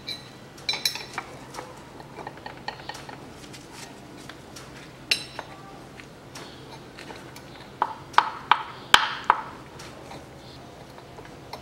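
Metal hand tools clinking and tapping against the air-conditioning compressor's clutch plate as a holding tool is set into it. Scattered sharp clinks, with a run of louder ringing clinks about eight to nine seconds in.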